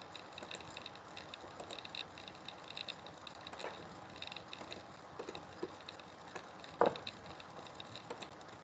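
Faint, scattered clicks of a computer mouse as it is worked, with one sharper click about seven seconds in, over a low steady hiss.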